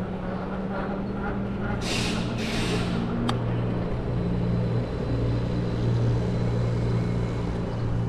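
City street traffic with a large vehicle's engine running steadily at a low hum, and two short air-brake hisses about two seconds in, followed by a sharp click.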